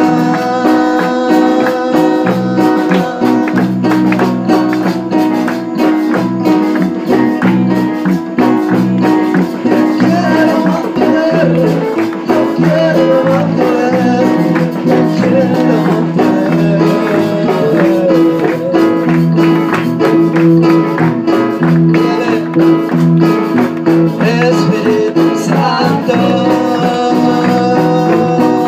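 Live church worship band playing an upbeat Spanish-language coro, with singing over tambourine, a bass line and a steady beat.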